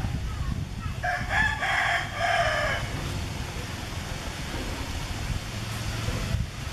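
A rooster crowing once, a drawn-out call of nearly two seconds in several pitched parts, over a steady low rumble.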